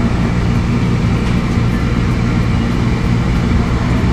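Steady low rumble of road traffic and engines, even throughout.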